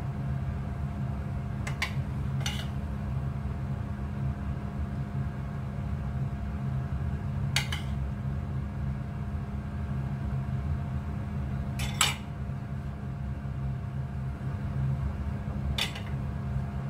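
A metal spoon clinks sharply against a ceramic plate about five times, spread out, while scooping filling. Under it runs a steady low hum.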